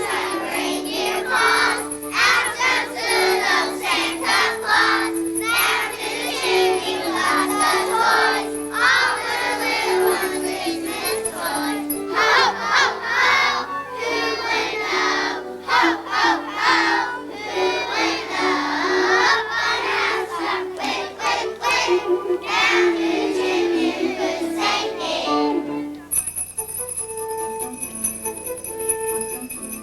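A group of young children singing a Christmas song over a melodic accompaniment, with a steady jingling of bells. The singing stops about 26 seconds in and the accompaniment plays on alone.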